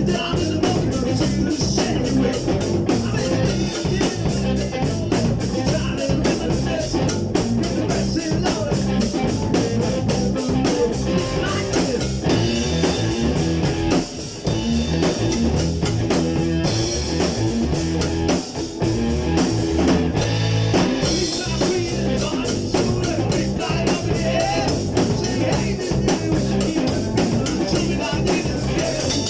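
Rock music with guitar and a drum kit playing a steady beat, with some singing.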